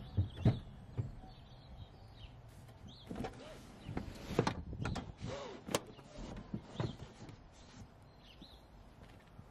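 MG4's folding rear seat back being swung upright and pushed into its latch: a series of knocks and clicks, busiest in the middle.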